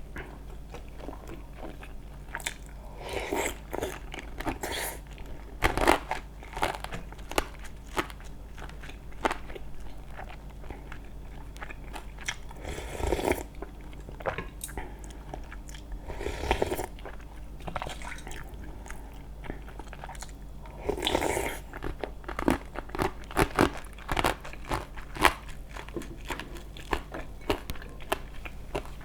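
Close-miked eating: crisp biting and crunching with steady chewing, with louder crunchy spells every few seconds.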